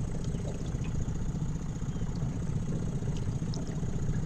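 Yamaha F25 four-stroke outboard motor idling steadily.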